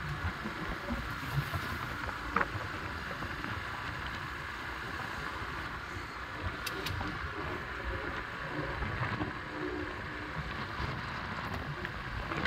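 A steady low rumble with wind noise on the microphone, broken by a brief click about two and a half seconds in.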